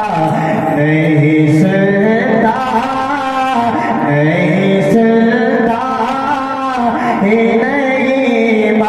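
A man singing a naat, a devotional Urdu poem in praise of the Prophet, into a microphone. He sings long held notes that slide from one pitch to the next.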